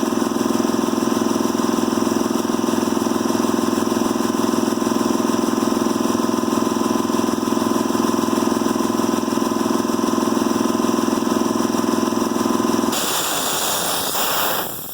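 Husky 80-gallon single-stage three-cylinder air compressor with a 4.7 hp electric motor running loud and steady as it refills the tank. About two seconds from the end it reaches its cut-off pressure and shuts off: the motor winds down while a sharp hiss of air is released.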